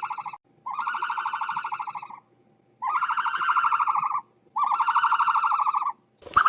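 An animal call repeated four times with short gaps. Each cry is about one and a half seconds long, held at a steady pitch with a fast flutter.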